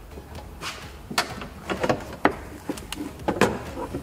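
Scattered clicks and knocks as a replacement window regulator and its motor are worked through the opening into the rear door of a BMW 325xi, the parts bumping against the door's sheet metal. The sharpest knocks come about a second in, at about two seconds and near three and a half seconds.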